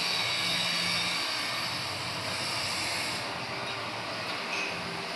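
Metal lathe running steadily while turning a shaft, with a steady mechanical hum under a high hiss. The hiss eases a little after about three seconds.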